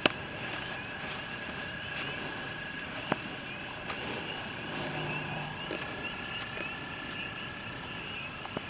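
Outdoor chorus of small, high chirps repeating several times a second, over a steady high-pitched tone, with a few sharp clicks: about three seconds in and near the end.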